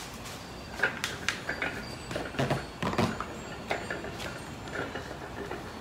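Irregular clicks, taps and light knocks of metal parts and hardware being handled while a steel exercise bench is put together, about a dozen sharp ones over a few seconds.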